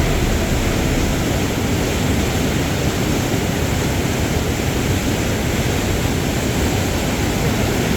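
Steady rushing of a large waterfall's falling water.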